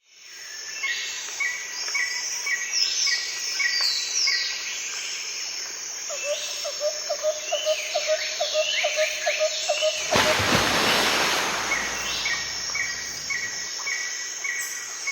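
Forest ambience of several birds calling: a chirp repeated about twice a second, higher swooping calls, and a quick run of lower notes in the middle. About ten seconds in, a broad rushing noise swells up for a few seconds.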